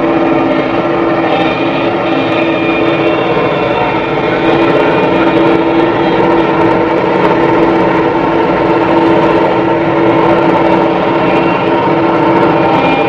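Diesel engines of heavy machinery (the stuck JCB backhoe loader and the forestry forwarder beside it) running steadily, a loud constant engine sound holding one pitch, getting a little louder about four seconds in.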